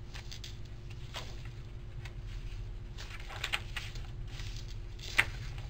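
Paper pages of a handmade journal being turned and handled by hand: soft rustles and taps, with one sharper click about five seconds in, over a low steady hum.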